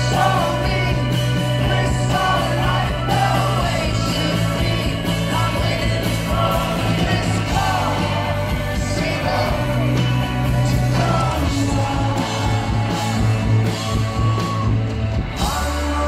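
A live rock band plays loudly, with drums, electric guitars, bass and a singer's vocal line, heard from within the audience. Just before the end, the full band gives way to a held low note.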